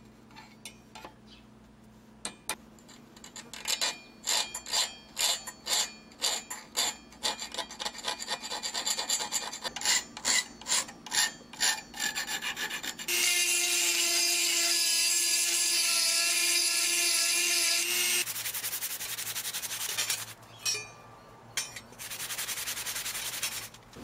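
Hand file scraping across the steel edge of a spatula's bottle-opener cutout in regular strokes, about two a second. Partway through, the strokes give way to a loud, steady whirring noise with a held tone for about five seconds, then a few more strokes.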